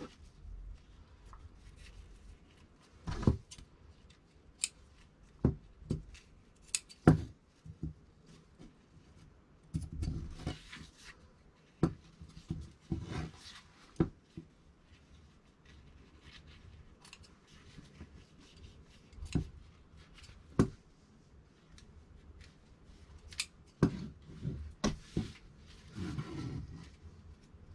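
Dressmaking shears snipping the tailor's-tack threads between two layers of cut jacket fabric, as scattered single sharp snips. Fabric rustles now and then as the layers are pulled apart.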